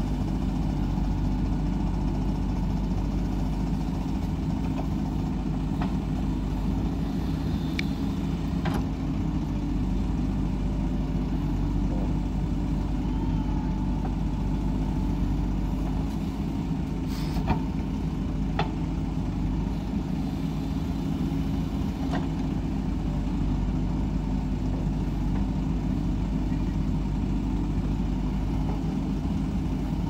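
JCB backhoe loader's diesel engine running steadily as the backhoe digs soil and swings round to tip it into a tractor trolley. A few short sharp knocks sound over it, the loudest about seventeen seconds in.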